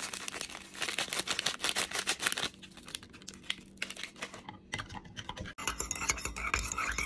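Foil instant-coffee sachet crinkling as it is shaken and emptied into a mug, then a spoon stirring coffee in a ceramic mug over the last second or two.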